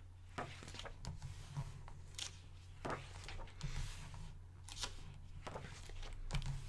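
Paper pages of a hardcover art book being turned and smoothed flat by hand: short rustles and brushes, about one a second.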